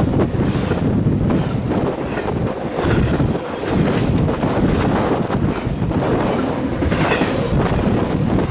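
Double-stack intermodal well cars passing close by at over 60 mph, wheels running on the rails, with wind buffeting the microphone throughout.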